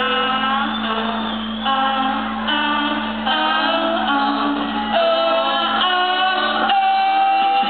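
Live band performing: voices singing a melody over electric guitar, ending on one long held note, recorded through a camcorder microphone in a concert hall.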